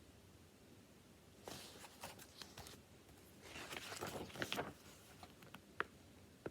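Rustling and handling noise in two short bursts, with a small click near the end.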